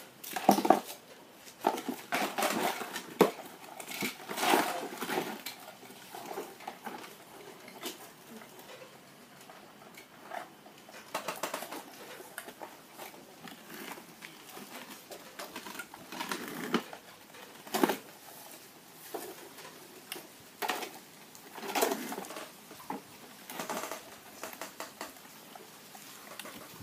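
Plastic toy vehicles knocking and scraping as they are handled and pushed about, in irregular clatters with short pauses between them.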